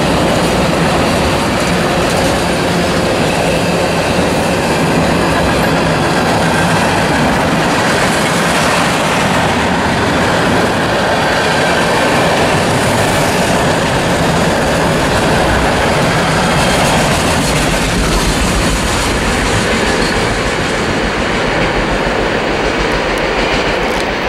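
Freight train cars (black tank cars, then covered hoppers) rolling past at close range, their steel wheels running on the rails with a steady, even noise throughout.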